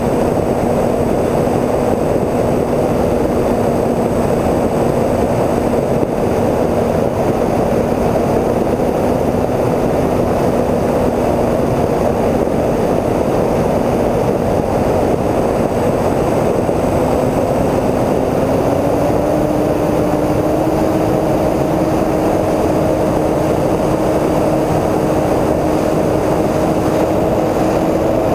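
Onboard sound of a Multiplex TwinStar II model plane in flight: its twin electric motors and propellers hum steadily under a heavy rush of wind over the camera. The hum steps up slightly in pitch about two-thirds of the way through.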